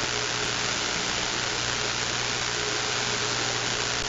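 Steady, loud hiss of CB radio static coming through an open receiver on an unoccupied channel, with a faint low hum under it.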